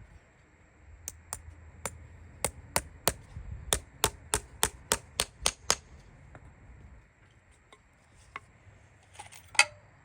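Farrier's hammer striking in a quick, even series of sharp taps, about three a second for some five seconds, followed a few seconds later by one louder knock.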